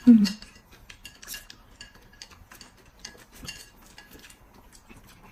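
Close-up eating sounds: chopsticks clicking and scraping on a ceramic plate, with chewing and lip smacks, heard as a string of small, sharp clicks. A brief, louder low sound opens it.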